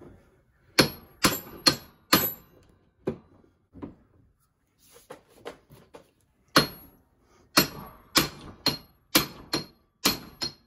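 Small sledgehammer striking a Dana 60 front axle shaft held across a steel bench vise, driving the U-joint bearing cap out of the yoke. The blows are sharp metallic strikes with a high ring: four in quick succession, two lighter ones, a pause, then from about six and a half seconds in a run of about eight blows, roughly two a second.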